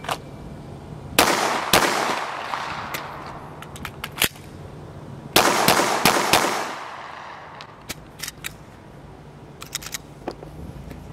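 Red-dot-sighted semi-automatic handgun firing the FAST drill. Two quick shots come about a second in, then a few sharp clicks during the slide-lock reload. Four fast shots in even cadence follow about five seconds in, each with a short echo.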